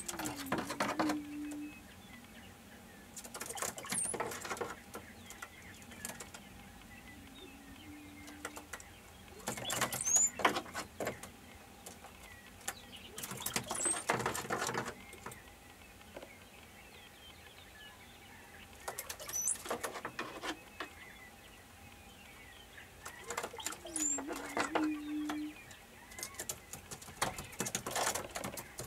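Greater prairie chickens displaying on a lek: bursts of rapid foot-stamping clatter come every few seconds, with three short low booming hoots that each slide down and then hold. Thin high chirps are scattered through.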